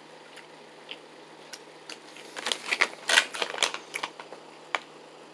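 Someone chewing a tough piece of teriyaki beef jerky: scattered sharp mouth clicks, coming thickest in a burst around the middle.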